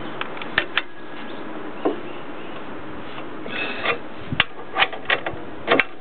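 Irregular metallic clicks and knocks from hand tools working on a Jeep Dana 30 front axle during a ball joint replacement, about a dozen spread unevenly, some in small clusters.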